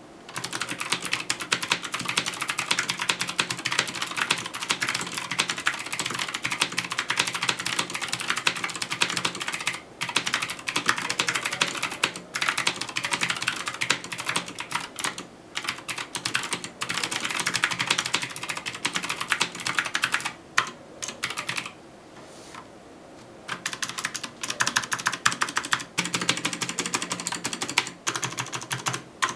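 Typing on a full-size Keychron mechanical keyboard fitted with PBTFans Resonance PBT keycaps: a fast, continuous clatter of keystrokes broken by a few short pauses, the longest about 22 seconds in.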